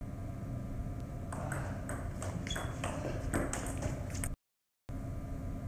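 Table tennis rally: the ball clicks sharply off the paddles and bounces on the table in a quick series of ticks, starting about a second and a half in. The sound drops out for about half a second near the end.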